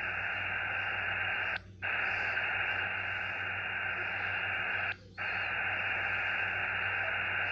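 Xiegu X6100 HF transceiver's speaker giving steady receiver hiss in LSB, with no high treble and a low hum under it, while the receiver is tuned up the 80-metre band. Twice, about one and a half and five seconds in, a click is followed by a brief dropout in the audio: the weird skip that the owner puts down to the IF moving as the SDR retunes.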